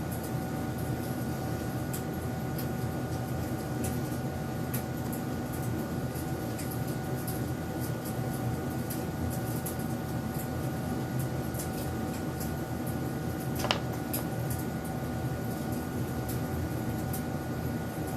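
A steady hum carrying a faint constant tone, with scattered light clicks and one sharper click about three-quarters of the way through.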